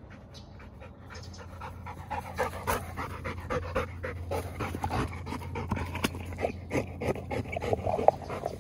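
A dog panting hard and fast after running to fetch a ball, getting louder from about two seconds in as it comes up close.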